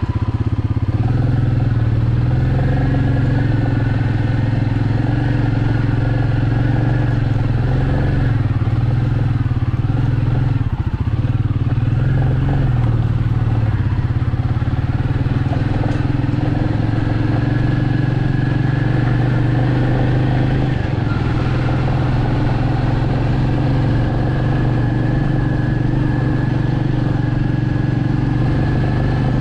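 Royal Enfield Meteor 350's single-cylinder engine and exhaust running steadily while riding, with small rises and falls in engine pitch as the throttle changes.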